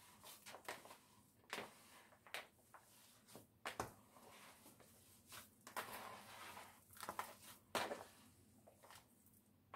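Faint, irregular soft knocks and scraping of a thick lentil-and-oat loaf mixture being mixed in a bowl.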